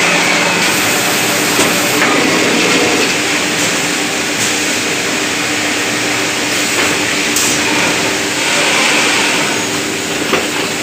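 Texpa automatic flat-sheet hemming and cutting machine running: a steady mechanical drone with a low hum, broken by a few short clicks, one of them near the end.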